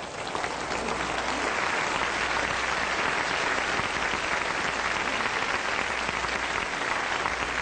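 Live audience applauding, swelling up at the start and then holding steady.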